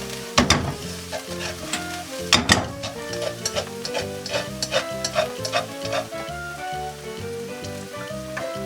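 Stir-frying in an oiled pan: food sizzling while a utensil stirs and knocks against the pan, with two sharper knocks early and a run of lighter taps after, over background music.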